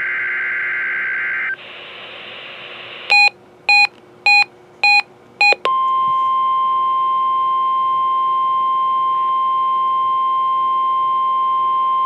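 NOAA Weather Radio alert sequence through a Reecom weather alert radio's speaker. It starts with the tail of a screechy SAME digital header burst and a second or so of static, then five short beeps from the receiver about half a second apart. About halfway through, the steady 1050 Hz weather radio warning alarm tone comes on and holds.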